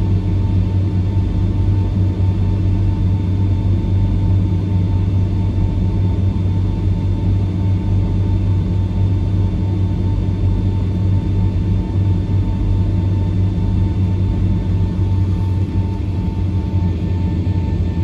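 Steady cabin drone of a Boeing 757-300 taxiing, its engines at idle: a deep hum with a thin steady whine above it, heard inside the cabin from a window seat by the wing.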